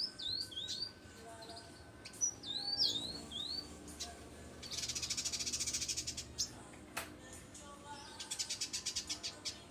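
Village indigobird singing: short rising whistled notes, then long fast buzzy chattering trills, repeated.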